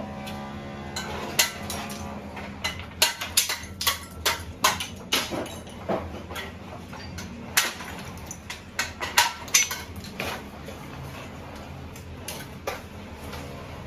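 Irregular sharp metallic clinks and knocks of bricklaying: a mason's trowel tapping and scraping on bricks and mortar while building a partition wall.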